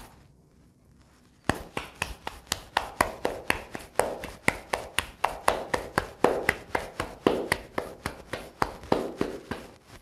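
Hands patting a ball of corn masa between the palms into a tortilla: a quick, steady run of soft slaps, about five a second, starting after a quiet second and a half.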